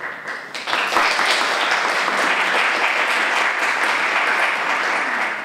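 Audience applauding: many hands clapping, breaking out about half a second in and holding steady.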